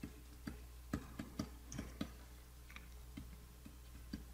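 Light, irregular clicks from computer input devices during digital painting at a desk, about a dozen scattered through, over a faint steady low hum.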